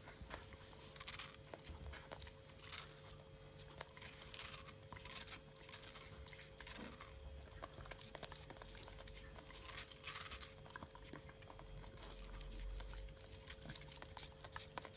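Golden retriever chewing and crunching a slice of watermelon, a run of soft wet crackles and bites. A faint steady hum sits underneath.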